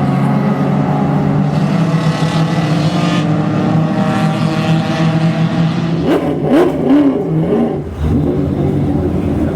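Race car engines running hard, a steady high engine note, then quick revs up and down with a few sharp cracks about six seconds in, before the steady note returns.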